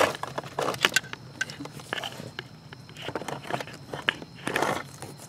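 A red 10-gauge wire in ribbed plastic loom being pushed through the firewall by hand: irregular scraping, crackling and clicks as the wire and loom rub against the panel and the hole.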